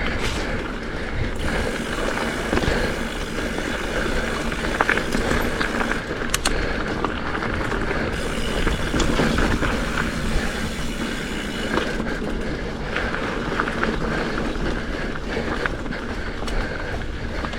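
Specialized Fuse hardtail mountain bike rolling along dirt singletrack: a steady rumble of tyres on the trail with the bike rattling, and a few sharp knocks over bumps.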